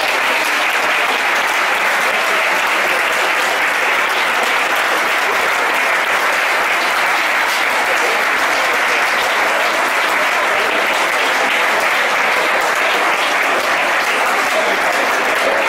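Audience applauding steadily after a live tango number.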